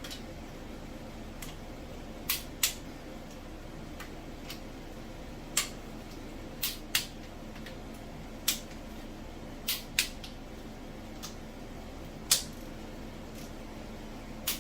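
Hand tools on the cylinder head bolts of a 1991 Honda Civic engine during a torque check: about a dozen sharp, isolated metallic clicks, some in close pairs, as from a click-type torque wrench and socket. A faint steady hum runs underneath.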